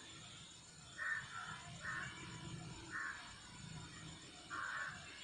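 A crow cawing outdoors: four harsh caws about a second apart, over faint low background noise.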